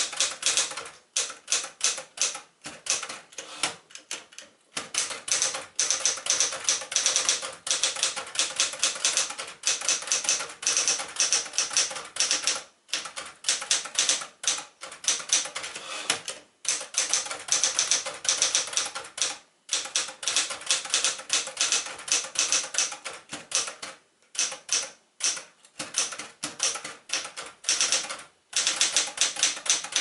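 1973 Smith-Corona Sterling manual typewriter being typed on: a quick, steady run of key and typebar strikes, broken by a few short pauses.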